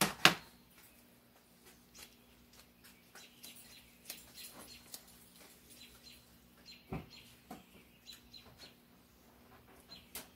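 Steel hand tools and transmission parts clinking on a workbench: a sharp double clack at the start as snap-ring pliers are set down, then scattered light clicks and taps as gears are handled.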